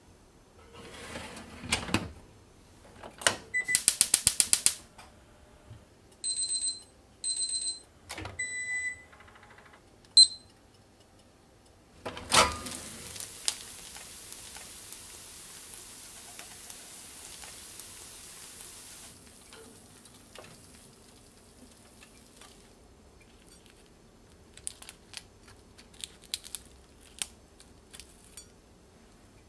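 Gas range fish grill in use. Its spark igniter clicks rapidly for about a second, and the control panel gives a few short electronic beeps. Then the grill drawer opens with a clunk and the grilled salmon sizzles for several seconds. Near the end, chopsticks tap lightly against a metal plate as the fillets are picked apart.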